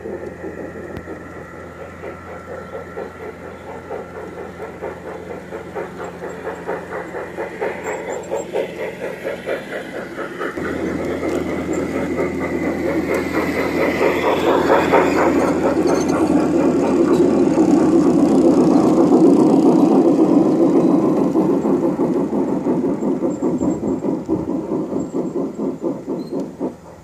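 G-scale model steam locomotive and passenger cars running on garden-railway track, their wheels and mechanism making a rapid, even clatter over a steady motor hum. The clatter grows louder as the train comes past close by, peaks, then fades as the cars go by.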